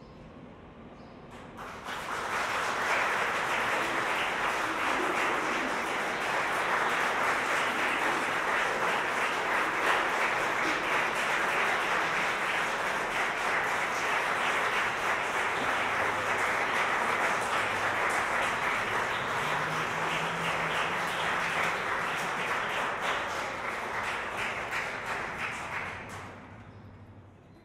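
A small audience applauding. The clapping starts suddenly about two seconds in, holds steady, and dies away near the end.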